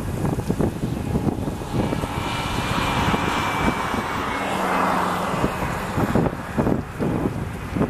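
Boeing 737 Next Generation jetliner on approach, its CFM56 turbofans making a jet rush with a thin whine that swells to a peak about five seconds in and then eases off. Gusts of wind buffet the microphone.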